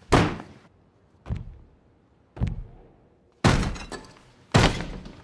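Five heavy thuds about a second apart, each with a short dying ring: a man's head banged repeatedly against a washbasin.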